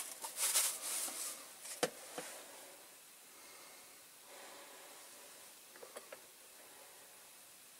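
Caustic soda bath fizzing as it strips paint off diecast model car bodies: louder bursts of fizzing in the first couple of seconds and a sharp click, then a faint steady hiss with a few light ticks.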